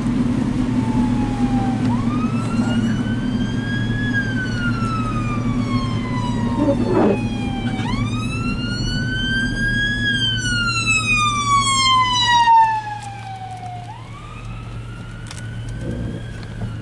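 Emergency vehicle siren on a slow wail: about three cycles, each a quick rise in pitch followed by a long fall, the loudest in the middle. Steady low road and engine hum underneath, which drops sharply in level near the end.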